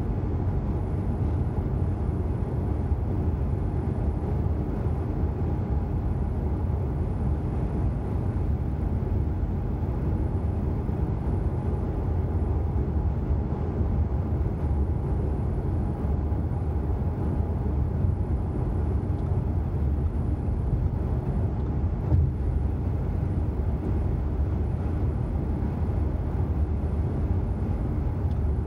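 A car's road and engine noise heard from inside the cabin while driving: a steady low rumble from tyres and engine, with a faint steady hum above it.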